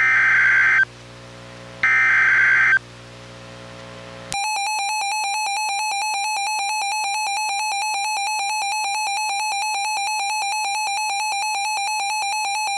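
Two bursts of the EAS SAME digital header, harsh data squawks about a second long each with a second's pause between, encoding a tornado warning. About four seconds in, the Reecom R-1630 weather radio's warning alarm sounds: a steady, rapidly pulsing electronic beep that keeps going.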